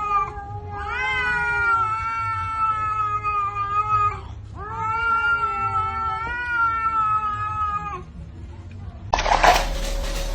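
Cat yowling: two long drawn-out calls of about three to four seconds each, held at a nearly steady pitch. Near the end a louder burst of noise with a few sharp knocks takes over.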